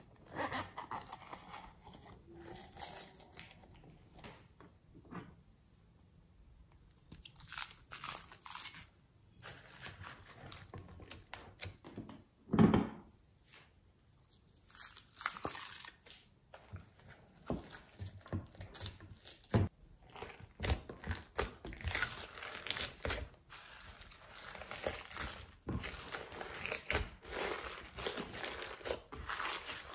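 Hands handling slime-making materials over a glass dish: scattered soft crinkles, rustles and taps, with one louder thump about twelve seconds in. In the second half the crackly squishing gets denser as glossy white slime is pressed and folded over clay.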